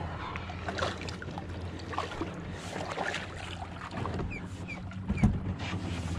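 Scattered knocks and clicks of gear being handled on a small fishing boat, over a steady low hum, with one louder knock about five seconds in.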